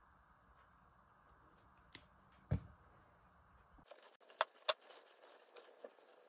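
Hands shaping paneer dough against a steel tray and then a ceramic platter: low background hum, a soft thump, then a few sharp clicks, two of them close together. The hum drops away about four seconds in.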